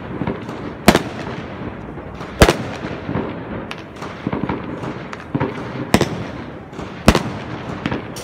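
New Year's Eve fireworks: four loud, sharp bangs, about a second in, two and a half seconds in, six seconds in and seven seconds in, over a continuous background of smaller bangs, cracks and rumbling.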